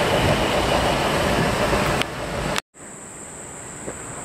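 Steady loud noise of traffic or machinery that cuts off suddenly about two and a half seconds in, followed by a much quieter background with a high steady whine.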